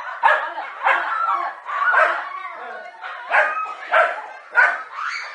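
Dogs barking repeatedly and aggressively as they confront a snake: a quick run of loud barks, about two a second, with a brief lull a little past halfway.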